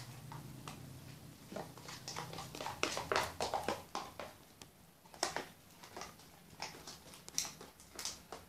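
Plastic spoon stirring and scraping a thick slime mixture in a plastic tub: irregular wet clicks and squelches, busiest about three seconds in and again near the end.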